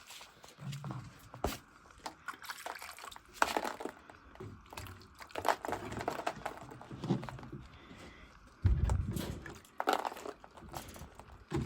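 A person walking and handling a plastic water jug: irregular knocks, rustles and sloshing water, with a heavier thump or splash about nine seconds in.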